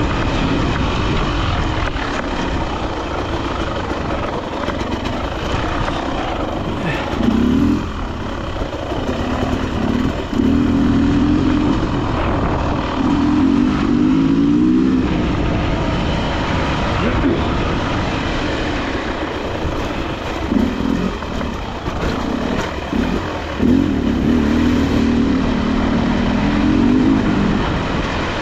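Dirt bike engine running under load, its pitch rising and falling again and again as the throttle is opened and closed, over a constant rushing noise.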